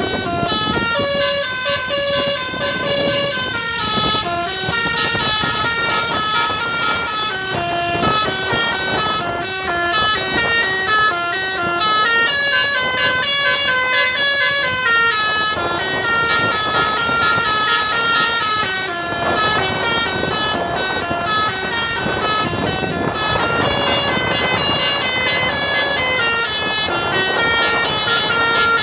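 Telolet basuri bus horn, a multi-tone musical air horn, playing a tune: an unbroken run of short held notes stepping up and down in pitch.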